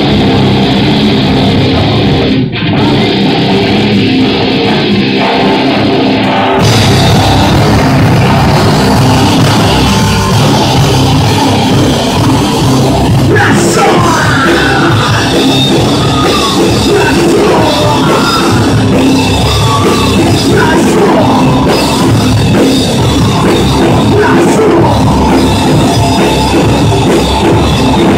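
Live rock band playing loud, with electric guitars, bass and a drum kit. The full band opens out into a fuller, brighter sound about six and a half seconds in, and a wavering line rides on top through the middle of the stretch.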